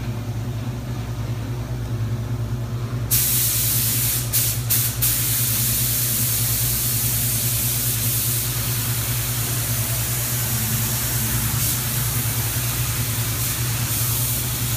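Compressed-air hiss of a DeVilbiss Tekna spray gun spraying sealer. It starts suddenly about three seconds in, cuts out briefly twice soon after, then runs steadily. A steady low hum runs underneath throughout.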